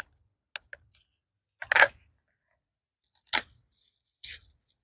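Scissors snipping through lettuce leaves: a few separate cuts, each about a second or so apart, with small clicks in between.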